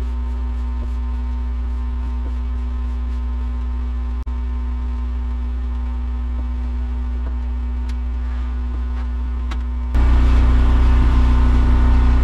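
Wood-Mizer LT15 Wide bandsaw mill's engine idling steadily with a low drone between cuts. It gets noticeably louder about ten seconds in.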